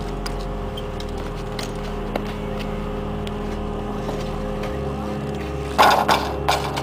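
Steady low drone, then about six seconds in a short cluster of loud hits as a BMX rider and his bike crash onto the concrete ramp.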